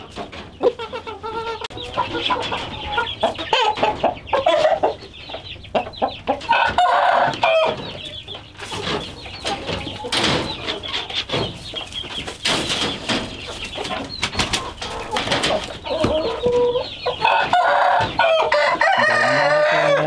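A flock of chickens clucking and calling, many short overlapping calls that rise and fall irregularly.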